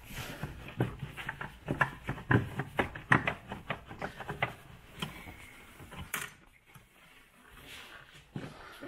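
Irregular clicks and knocks of a brake master cylinder and its plastic fluid reservoir being wiggled and worked loose from the brake servo, with one sharp click about six seconds in.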